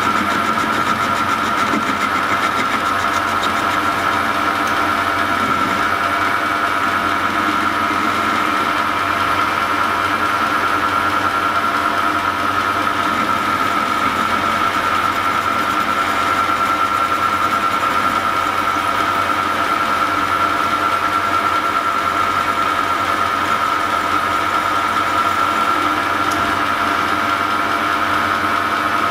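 Metal lathe running at a steady speed, its chuck spinning a copper tube held on a mandrel, with a steady high whine over the even running noise.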